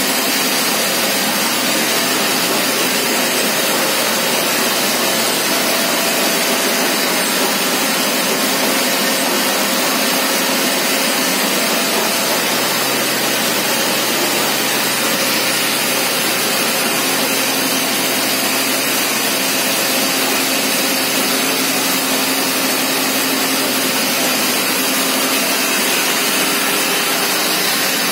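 Ferraro felt-type open width compactor and the textile-mill machinery around it running: a loud, steady rushing din with faint constant hums underneath.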